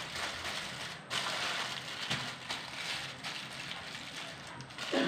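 Aluminium foil crinkling and rustling as it is folded and pressed by hand around a fish.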